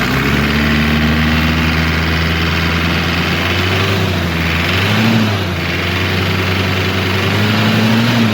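Toyota 2L 2.4-litre four-cylinder diesel engine running at a steady idle, with a brief rise in revs about five seconds in and revs climbing again near the end.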